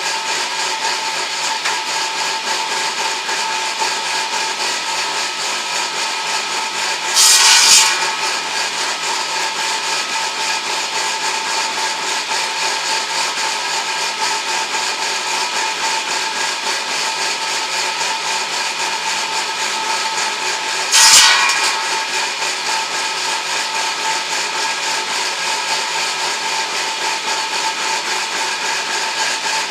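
A homemade edging saw runs steadily with an even whine. Twice, about a quarter of the way in and again about two-thirds through, there is a short, harsh burst of sawing as the blade cuts wood.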